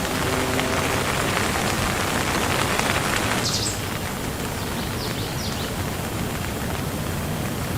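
Steady rain falling, heavier in the first half and easing off about three and a half seconds in, with a few brief high chirps over it.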